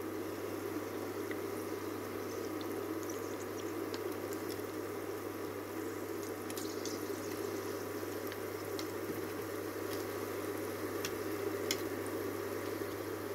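Buchi (sesame balls) deep-frying in a pot of hot oil: steady bubbling with scattered small crackles and pops.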